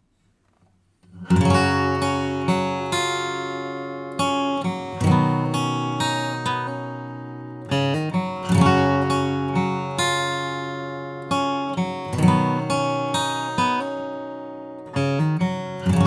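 Guild GAD 50 acoustic guitar played in chords, strummed and picked, each chord ringing out and fading before the next is struck. It comes in about a second in, after a moment of quiet.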